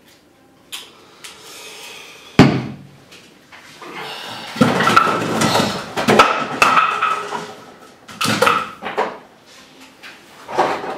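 Knocks, clatter and rustling of objects being handled on a desk. A sharp thump about two seconds in is the loudest, followed by a busy stretch of clatter and a few more knocks near the end.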